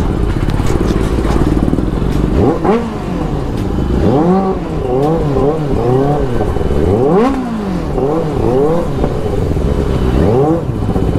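Benelli motorcycle engine running at low speed. From about two seconds in it is revved in short throttle blips over and over, the pitch rising and falling with each blip, about two a second, with a brief lull near the end.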